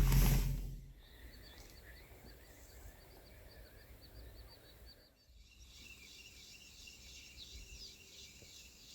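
Faint outdoor ambience of birds and insects: a low rumble fades out in the first second, then soft high chirps repeat a few times a second. After a break about five seconds in, a steady high insect-like trill continues with a few bird calls.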